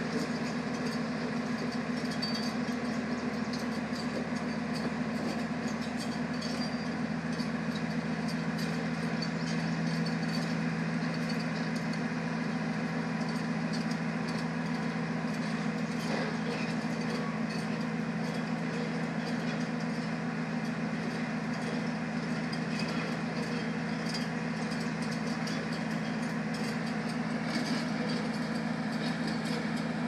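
Heavy diesel engines of a bulldozer and a semi truck running at a steady pitch: a constant low drone with a light clatter over it.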